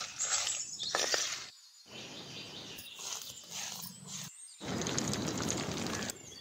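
Three short cooking sounds, each cut off by a brief silence. First, a metal ladle stirs dry-roasting chillies and coriander seeds in a clay pot. Then a stone roller grinds spice paste on a grinding stone. Last, hot oil sizzles steadily as a whole goat head deep-fries.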